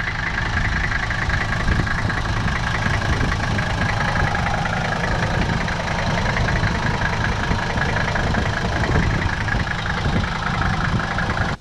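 Mercedes-Benz W126 five-cylinder diesel idling warm, running smoothly with a steady, fast, even diesel clatter.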